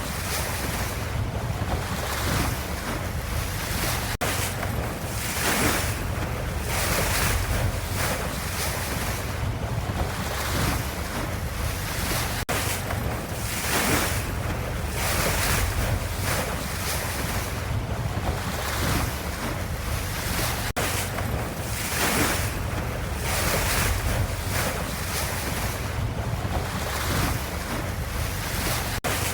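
Ocean waves: a steady wash of surf noise that swells and fades every second or so.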